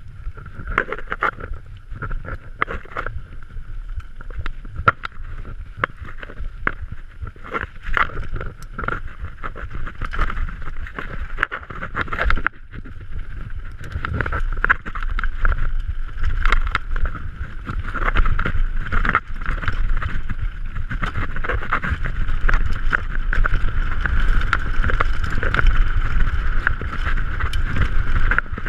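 Downhill mountain bike rattling fast over a rough, rocky dirt trail: tyres on loose dirt and stones, with many sharp knocks and clatters from the bike over bumps and a low wind rumble on the microphone. A steady high buzz runs under it.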